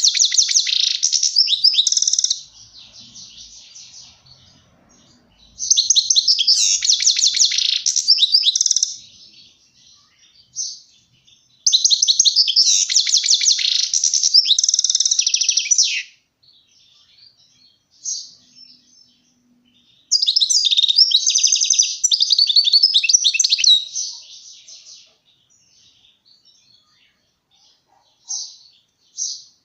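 European goldfinch singing: four long phrases of fast, high twittering and trills, each lasting about three to four seconds. Between the phrases are pauses with a few short chirps.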